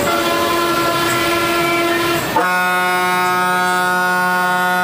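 Bus horn blown in one long continuous blast, heard from inside the driver's cabin, switching to a lower, stronger tone about two seconds in. It is the warning sounded going into a blind hairpin bend on a hill road.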